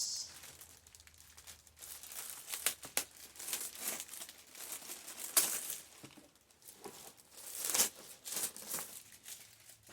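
Plastic cellophane wrapper being pulled off a laptop: irregular crinkling and crackling, with louder rips about five and eight seconds in.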